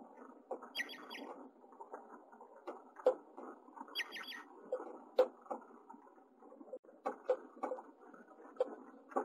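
House finch nestlings begging while a parent feeds them. They give two short bursts of about three quick, high chirps, about half a second in and about four seconds in. Throughout, the nest material rustles and scratches, with sharp clicks as the birds shuffle in it.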